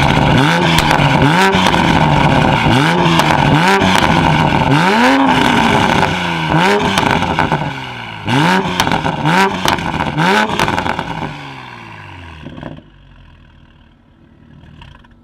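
Tuned Toyota Supra MK5's turbocharged straight-six with an Fi aftermarket exhaust, revved hard while parked: a rapid run of about a dozen short throttle blips, each a quick rise and fall in pitch, with exhaust pops and crackles between them. About 13 seconds in the revving stops and the engine settles to a quiet idle.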